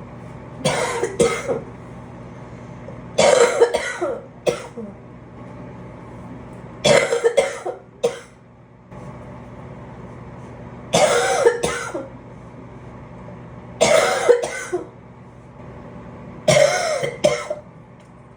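A sick person coughing in six short fits a few seconds apart, each fit two or three coughs in quick succession.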